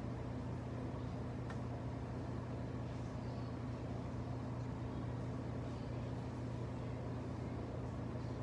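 Steady low hum with a faint hiss, with one faint click about a second and a half in.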